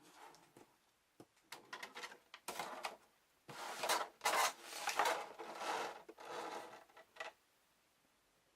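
Hard plastic pieces being handled: a run of irregular clicks and rubbing scrapes, densest and loudest in the middle, stopping about a second before the end.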